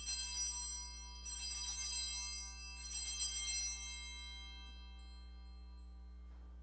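Altar bells (Sanctus bells) rung three times, each a short bright jingling ring that fades, marking the elevation of the consecrated host. A steady low hum runs underneath.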